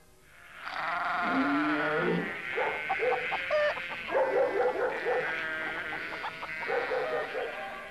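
A chorus of overlapping animal calls, starting about half a second in.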